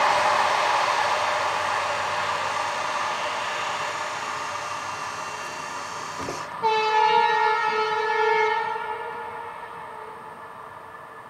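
A passing train's noise fading as it moves away. About six and a half seconds in, a train horn sounds one blast of about two seconds, then dies away.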